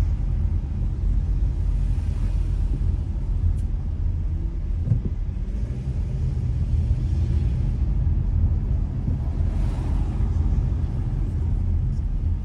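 Car interior road and engine noise while driving: a steady low rumble heard from inside the cabin.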